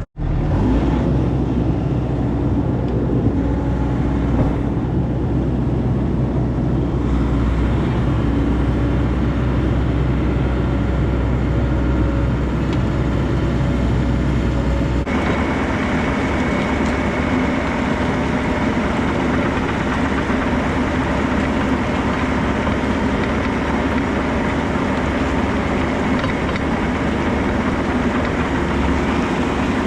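Bobcat compact excavator's diesel engine running steadily. About halfway through the sound changes and a thin high whine comes in, the kind of hydraulic pump whine the owner puts down to air still in the hydraulics or a failing pump.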